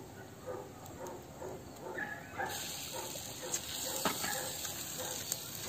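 Beef sizzling in a hot frying pan: a strong steady hiss that starts suddenly about halfway through. Short faint animal calls repeat throughout.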